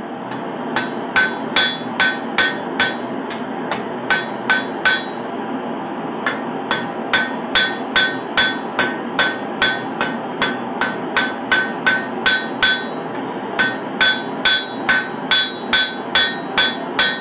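Hand hammer striking a red-hot katana blade on a steel anvil, about two to three blows a second in runs with short pauses, each blow ringing. The smith is forging the edge bevel, hammering the edge thinner than the spine.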